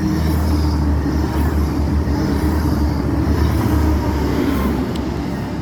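Grand Central Class 180 Adelante diesel multiple unit passing through the station: a loud, steady low diesel rumble with running noise from the wheels, easing slightly near the end.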